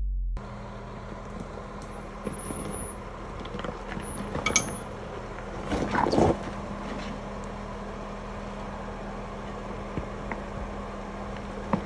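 Off-road vehicle engine running low and steady, with scattered light clinks and two louder scraping crunches about four and a half and six seconds in.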